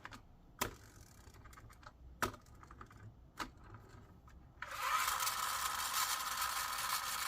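A few sharp clicks and light ticks from handling the die-cast Cybertruck model. About four and a half seconds in, its wound pull-back motor is let go and spins the wheels freely in the air, giving a steady, loud, high whir.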